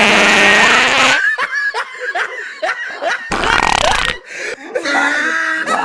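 Fart noises: a run of short squeaky toots and one longer raspy blast about three seconds in, mixed with laughter.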